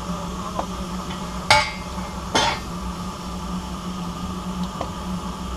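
Two sharp metal clanks a little under a second apart, from tools being handled on a steam locomotive's footplate, over a steady low hum.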